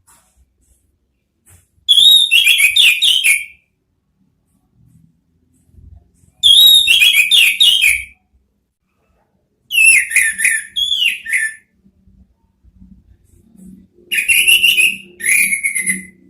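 Orange-headed thrush singing: four short phrases of rapid whistled notes, each falling in pitch, with pauses of a few seconds between them.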